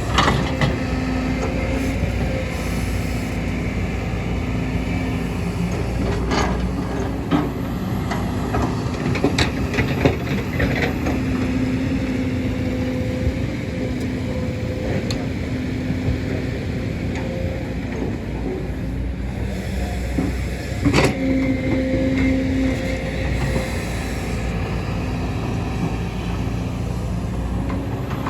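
Kobelco hydraulic excavator's diesel engine running under digging load, its tone rising and easing every second or two as the hydraulics work. Several sharp knocks sound between about six and eleven seconds in, and another about 21 seconds in.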